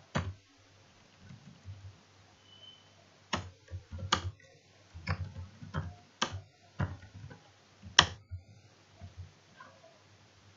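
Computer keyboard keys clicking in scattered, irregular keystrokes, with a low steady hum underneath.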